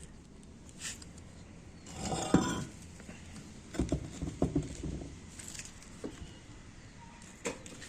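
Handling noises with no speech: a scrape with a sharp knock about two and a half seconds in, then a run of light knocks and rattles around four to five seconds, and a single click near the end.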